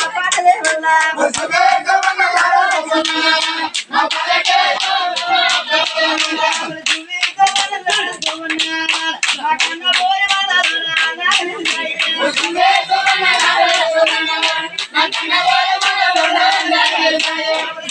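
Group hand-clapping in a steady rhythm, about three claps a second, keeping time for men singing a golla chaduvu folk song.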